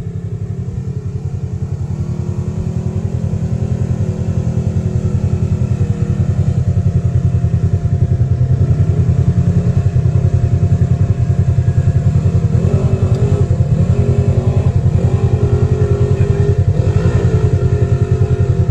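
Polaris RZR side-by-side engine pulling steadily up a steep dirt hill climb, a low rapid throb at fairly even pitch. It grows louder over the first several seconds, then holds.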